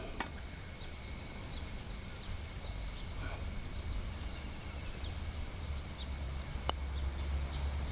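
Quiet tropical outdoor ambience: scattered faint bird chirps and one short rising whistle, over a steady high hum and a low wind rumble.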